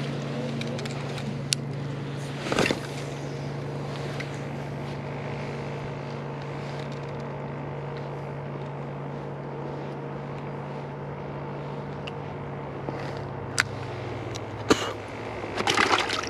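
A steady low motor hum that fades out near the end, with a few sharp clicks and a short burst of rustling near the end.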